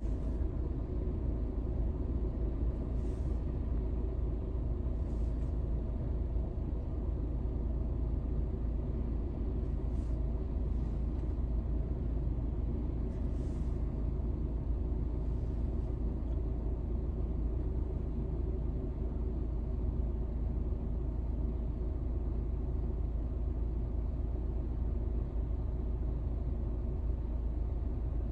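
Emirates Airbus A380's jet engines at taxi power: a steady low drone with a few steady hum tones, unchanging in level as the aircraft rolls past.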